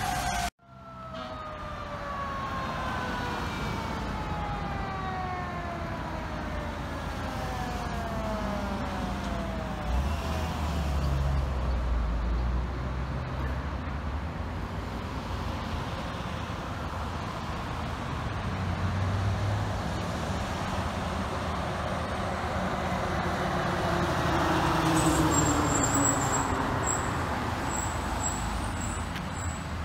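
Fire apparatus siren winding down, its pitch falling slowly over several seconds, typical of a mechanical siren coasting to a stop. Then a heavy engine rumbles about ten seconds in, and emergency vehicles pass with road noise.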